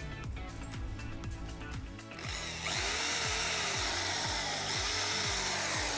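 Background music, then, about two seconds in, a handheld electric drill with a very fine bit starts running steadily, drilling small marks through a cardboard windlass template into a boat's deck.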